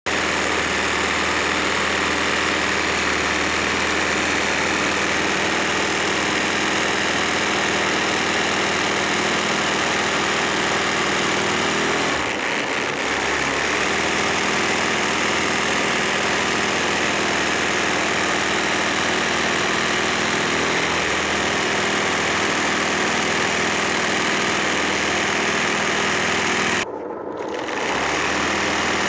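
Electric embroidery machine running steadily as it stitches machine embroidery into fabric, a constant mechanical hum. The sound dips briefly about twelve seconds in and cuts out for a moment near the end.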